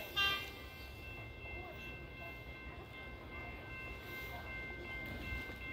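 Suburban electric passenger train running: a steady low rumble with several steady high-pitched whining tones over it, and one short, loud, high-pitched sound about a quarter of a second in.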